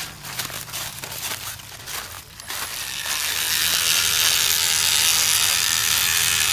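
Footsteps rustling through dry leaf litter, then from about two and a half seconds in a battery-powered electric rubber-tapping knife running steadily as its blade shaves a tapping groove into a rubber tree's bark.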